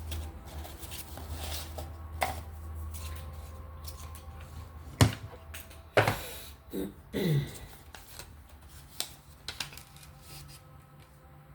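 Oracle cards being handled and drawn from a deck: scattered sharp clicks and snaps of the cards, two of them stronger about five and six seconds in.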